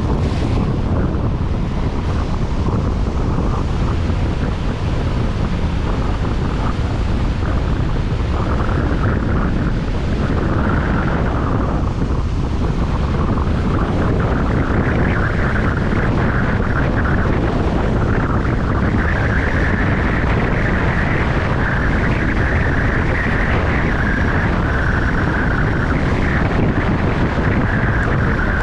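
Steady rumble and rush of a moving vehicle's road noise mixed with wind buffeting the microphone, with no break or sudden event.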